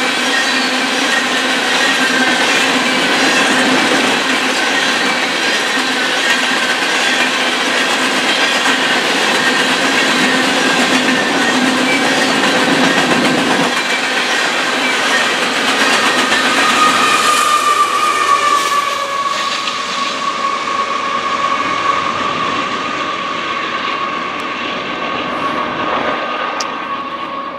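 Freight train's hopper cars rolling past with wheels clacking and squealing on the rails. About two-thirds of the way through the last cars go by and the rail noise eases, leaving a steady high tone to the end.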